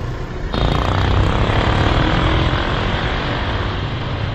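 Street traffic noise, a steady rushing hum with a low rumble, coming in suddenly about half a second in.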